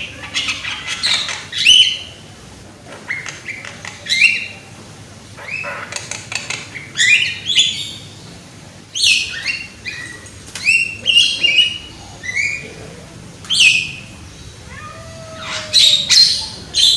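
Young Javan myna (jalak kebo) calling loudly: a long run of sharp, harsh notes, many sweeping down in pitch, in bursts about once a second.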